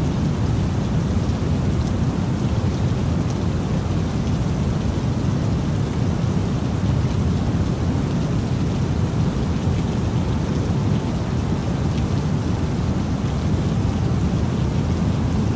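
Steady, unchanging rain-like noise with a deep rumble underneath.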